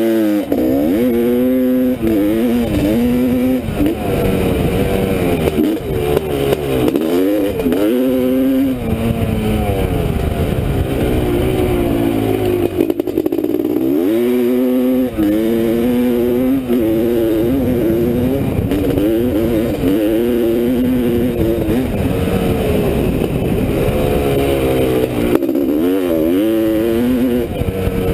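1985 Honda CR500's 500 cc two-stroke single-cylinder engine revving hard under load, its pitch climbing and dropping back again and again as the rider accelerates and shifts gears.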